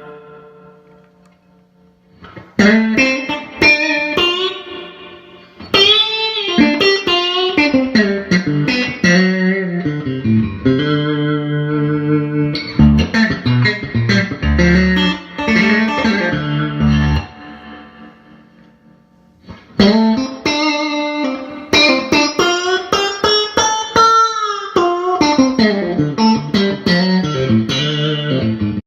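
G&L Stratocaster-style electric guitar with a Seattle Super Switch, played clean through a Fender Vibroverb amp to demonstrate its pickup-selector tones. It is played in phrases of picked notes and chords, with a near pause about two seconds in and another a little past the middle.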